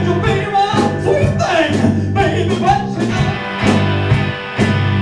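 Live rock band playing: electric guitar, electric bass and drums with a steady cymbal beat. A man sings over it for roughly the first three seconds.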